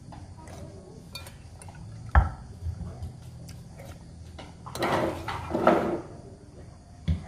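Metal spoon clinking against a plate while eating, with a sharp knock about two seconds in and a few lighter ticks. This is followed by a couple of seconds of louder rough scraping as the spoon scoops from the plate.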